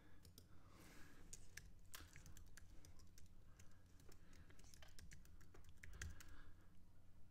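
Faint, irregular clicking of computer keyboard keys, a scattered run of single key presses, over a low steady hum.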